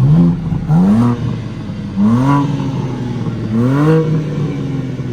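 Stock 2023 BMW M3 (G80) twin-turbo inline-six free-revved from idle: four quick throttle blips, the engine note rising and falling each time, the last one about three and a half seconds in going highest and lasting longest.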